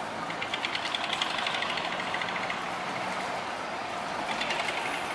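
A boat engine running, with a fast, even clatter that fades about two and a half seconds in and returns near the end.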